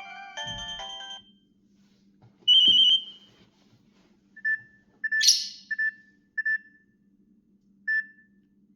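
Nokia 6670 mobile phone's loudspeaker playing short electronic tones. First a quick stepped melody of a few notes, then a single loud high beep, then several short key beeps spaced a second or so apart, with a brief bright burst of sound among them.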